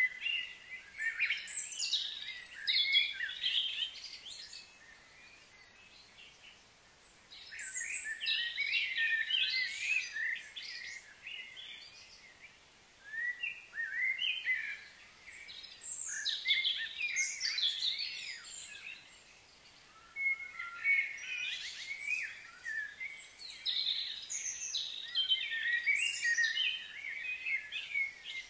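Several songbirds chirping and singing over one another in bouts of quick, high warbling notes, easing off briefly a few times in between.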